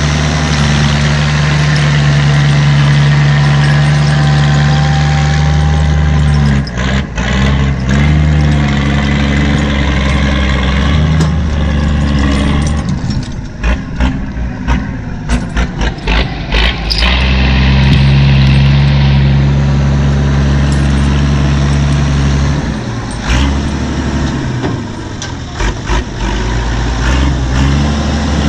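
Brimont TM 325 log skidder's five-cylinder Deutz diesel engine running. Its note is steady for stretches, and through the middle it turns uneven, with dips in level and sharp knocks, before settling steady again.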